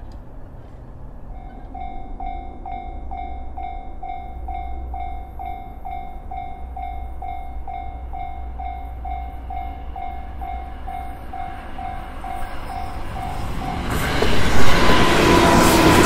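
Japanese level-crossing electronic warning bell starting up about a second and a half in, ringing a steady ding about twice a second. Near the end the noise of an electric passenger train passing the crossing takes over loudly.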